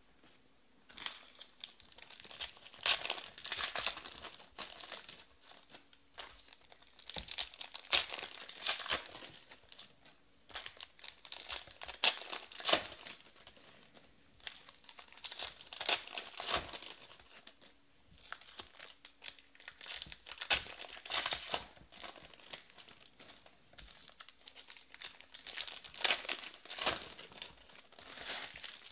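Foil trading-card packs being torn open and their wrappers crinkled in the hands, in crackling bursts every four seconds or so with quieter gaps between them.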